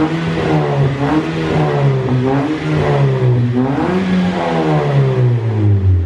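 2018 Toyota Yaris 1.5-litre four-cylinder engine revved in repeated throttle blips through a full-bass NDK DK-03 V4 muffler, Drag S resonator and stock header. The exhaust note rises and falls with each blip and drops lower toward idle near the end.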